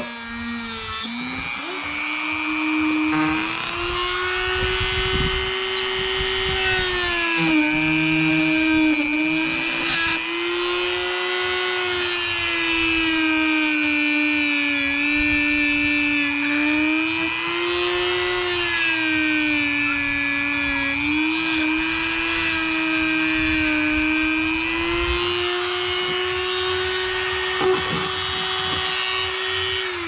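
Dremel rotary tool with a cut-off wheel running at high speed while cutting through a plastic RC-car roll cage. Its steady whine dips in pitch each time the wheel is pressed into the cut and climbs back as the load eases, several times over.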